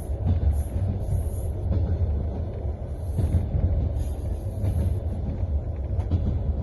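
Passenger train running, heard from inside the carriage: a steady low rumble with the knocking of the wheels on the rails.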